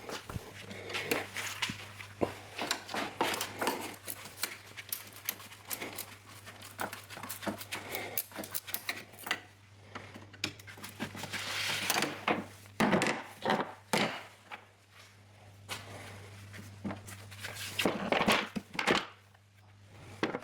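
Hands working on a car's front-end parts: an irregular run of clicks, knocks and plastic rattling, with a longer scraping, rustling stretch about halfway. A steady low hum runs underneath.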